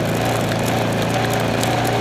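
Off-road race car's engine running at a steady pitch, heard from the driver's helmet camera, with scattered sharp rattling clicks over the top.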